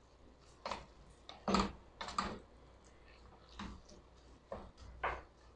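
Wooden spatula stirring corn kernels, mushrooms and tuna in a stainless steel pot. It makes short, uneven scrapes and knocks against the pot, roughly one every half second.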